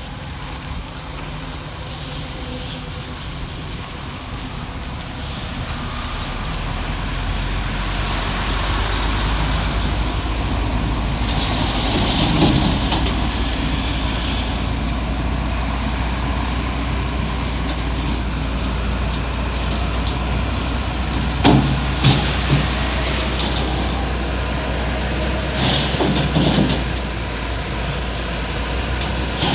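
Crawler bulldozer working, its diesel engine running steadily and growing louder about six seconds in, with track clatter. Short metallic clanks and knocks come about midway and several more times near the end.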